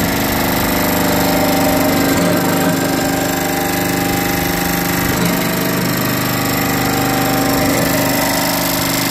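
Electric motor and hydraulic pump of a hydraulic-cylinder brick press running steadily, with an even hum and a fast, regular rattle.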